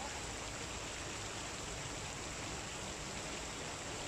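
Decorative fountain with many spray jets splashing into its basin: a steady rush of falling water.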